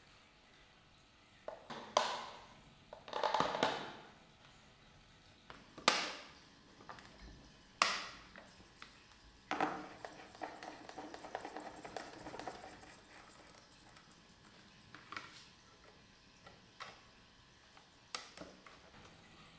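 Wooden lamp frame and panels being handled and set down on a hard surface: several sharp wooden knocks and clatters in the first half. Then a light bulb is screwed into its socket with a short grinding rasp, followed by a few lighter taps.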